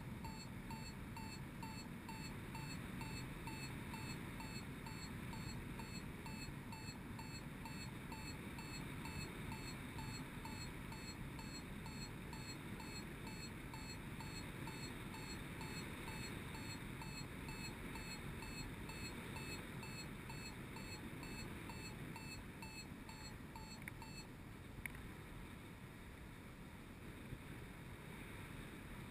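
Paragliding variometer beeping in rapid, even short chirps, which signals that the glider is climbing in lift, over a steady rush of wind. The beeping stops about four-fifths of the way through.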